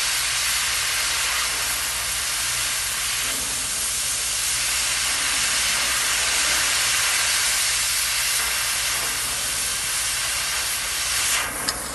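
Oxy-acetylene torch flame hissing steadily. Near the end the hiss drops and there is one sharp click.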